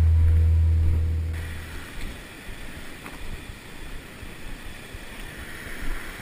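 Background music ending on a held low bass note that fades out over the first two seconds, then the steady rushing of a rocky mountain river, with a few faint knocks.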